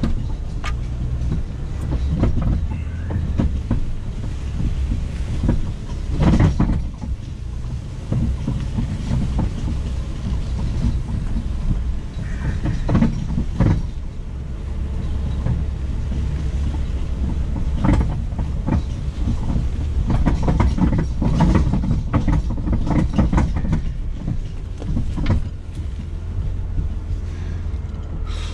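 Jeep Cherokee towing a wheeled log arch with a suspended oak log over a rough woods trail. A steady low engine drone runs under frequent clanks and rattles from the hitch and the arch as they bounce over bumps.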